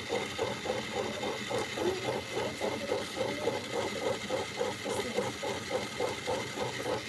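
Small electric motor of a Magic Egg Decorator spinning an egg, a steady whirr with a regular pulse of about three beats a second.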